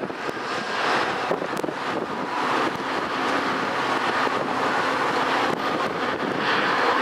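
Steady outdoor vehicle noise with wind buffeting the microphone.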